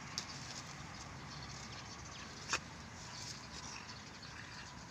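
Two dogs play-fighting on a dirt path, quiet apart from a short sharp click near the start and a louder one about two and a half seconds in.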